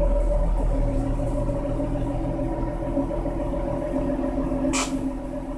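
Stock exhaust of a 2014 Ford Mustang V6 with its 3.7-litre engine, running at a steady low engine speed as the car rolls slowly away, the note fading as it goes. A short sharp click about five seconds in.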